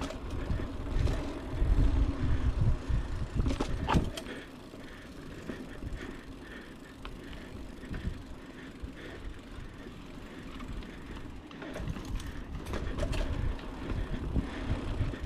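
Mountain bike riding a dirt trail: wind buffeting the microphone and the tyres rumbling over the ground, with a few sharp knocks from the bike. Loudest in the first four seconds, quieter through the middle, and building again near the end.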